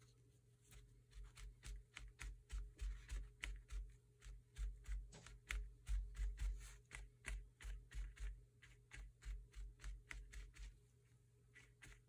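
Crumpled paper towel dabbing white paint onto paper on a tabletop. It makes a quick, irregular run of soft taps with dull thumps, about two or three a second, which starts about a second in and stops about a second before the end.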